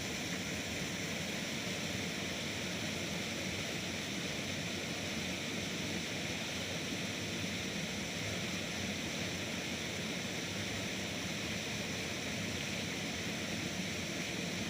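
Steady, even rushing of a small river's flowing water.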